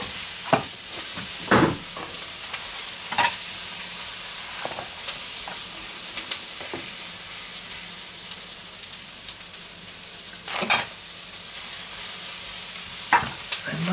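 Food sizzling steadily in a frying pan, with several short knocks and clinks from a stainless-steel burger press being handled, the loudest about ten and a half seconds in.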